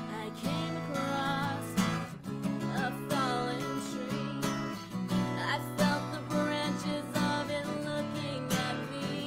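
A woman singing over a strummed acoustic guitar.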